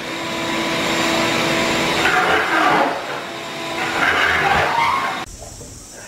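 Shop vacuum running, its extension wand sucking up grinding dust from a concrete floor. The steady suction noise swells twice as the nozzle sweeps the floor, and cuts off about five seconds in.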